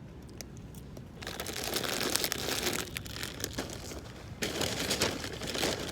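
Crinkly packaging crackling as it is opened by hand. It starts about a second in, eases off for a moment, and picks up again near the end.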